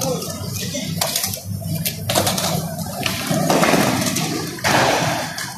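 Urethane skateboard wheels rolling over a smooth tiled floor with a steady rushing hiss that swells about two-thirds of the way through, broken by several sharp clacks of boards hitting the ground.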